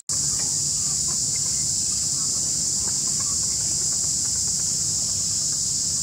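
Steady, high-pitched drone of an insect chorus, with a few faint short bird calls in the background.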